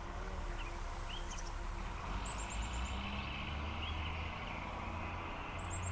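Small birds calling: short rising-and-falling chirps and a quick high trill a couple of times, over a steady low hum.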